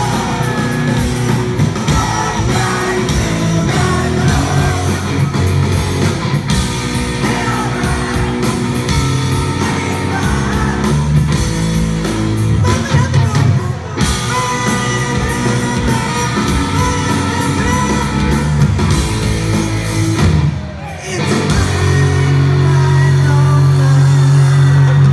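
Live rock band with electric guitars, bass and drums playing loudly while a singer sings. Near the end the music drops out briefly, then a steady low note holds through the last few seconds.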